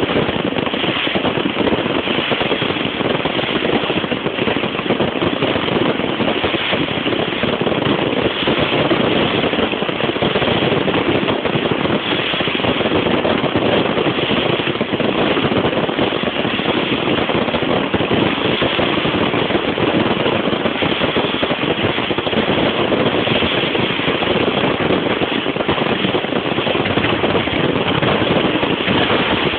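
Fireworks going off in a dense, continuous barrage of crackles and bangs, too rapid to pick out single shots.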